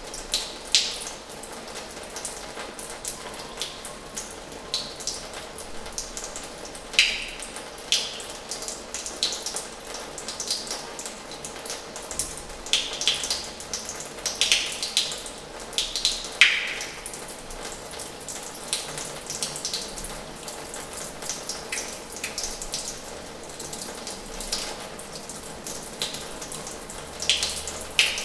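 Water running from the tap of an old washhouse into its basin: a steady rush of water with irregular splashes and plops, some dropping in pitch, the loudest about sixteen seconds in.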